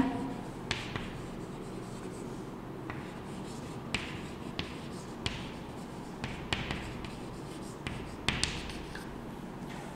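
Chalk writing on a chalkboard: soft scratching strokes and sharp taps at irregular intervals as the letters are formed.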